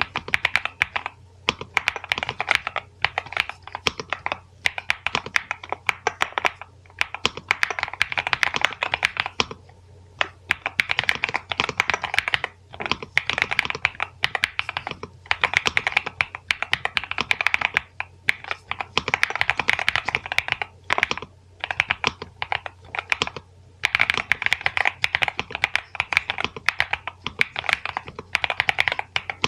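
Fast typing on a NuPhy Halo96 V2 mechanical keyboard fitted with Mint switches: dense runs of key clacks, broken by short pauses every few seconds.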